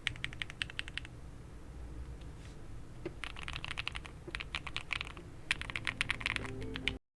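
Typing on a mechanical keyboard: fast runs of keystroke clicks in three bursts, with a pause of about two seconds after the first, cutting off suddenly near the end.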